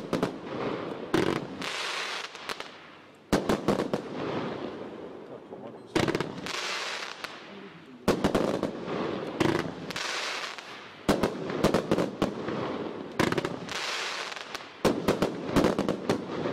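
Magnum Fireworks 'Singapore Glitter' multi-shot firework cake firing in volleys: a cluster of sharp bangs every two to three seconds, about seven times, each followed by a fading hiss as the glitter stars burn.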